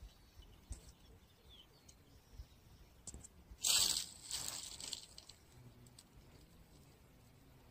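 Cast of a fishing rod: a short, sharp swish of rod and line about three and a half seconds in, then a softer hiss lasting about a second. A faint bird chirp comes about a second and a half in.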